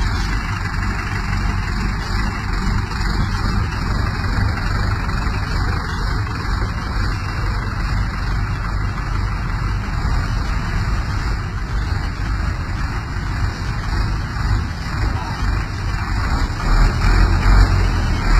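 Diesel engines of Kartar 4x4 tractors running as the tractors drive past one after another, a steady low rumble that grows louder near the end as one passes close.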